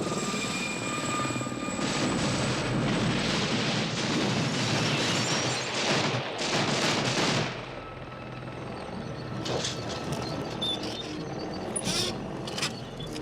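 Helicopter flying low with a long burst of very rapid cannon fire through roughly the first half, then helicopter noise with a few separate sharp cracks.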